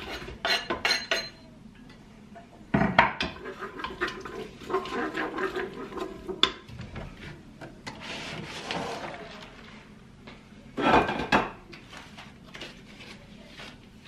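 Wooden spatula scraping chopped onion off a wooden chopping board into the pot of a Cookeo multicooker, then knocking and stirring in the pot, with kitchen utensil clatter. There are sharp knocks in the first second, a loud knock about three seconds in followed by scraping, and another loud clatter near eleven seconds.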